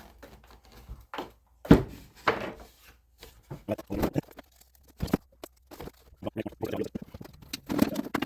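Handling noise from the damaged model-airplane tail section being moved around on the bench: irregular taps, knocks and rustling, with a sharp knock about a second and a half in.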